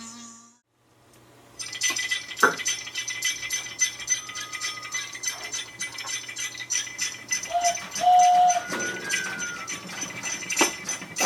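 Hand-made film sound effects: a dense, continuous rattling full of clicks that starts about one and a half seconds in, with two short pitched notes about two-thirds of the way through.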